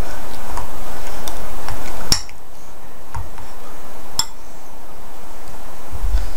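A utensil clinking and tapping against a bowl of melting chocolate chips as it is stirred: scattered light clinks, with two sharper knocks about two and four seconds in.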